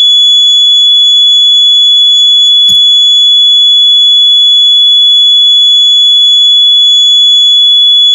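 A 95-decibel electronic fire-alarm buzzer sounding one continuous, very loud, high-pitched tone. A brief click about two and a half seconds in.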